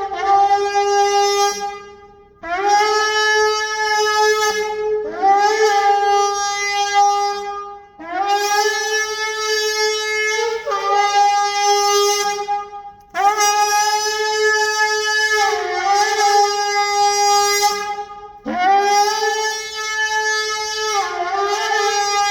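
Gemsbok (oryx) horn shofar blown in a run of about eight long blasts on one steady, bright note. Each blast starts with a short upward scoop in pitch, and a few break with a quick dip near their end.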